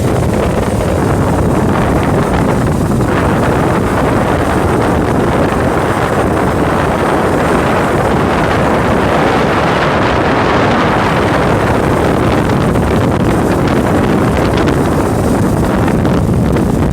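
Motorboat under way on its 4.2-litre turbodiesel: a steady mix of engine and rushing water, with wind buffeting the microphone.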